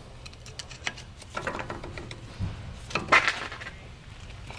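A screwdriver levering a brake pad against a four-piston Brembo brake caliper to push its pistons back in: scattered metal clicks and short scraping clatters, the loudest about three seconds in.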